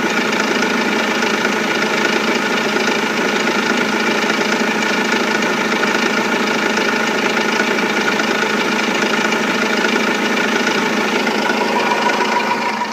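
Renault Laguna II 2.2 dCi four-cylinder common-rail diesel engine running steadily, with a knocking, nailing clatter. It is heard after a timing belt and water pump replacement.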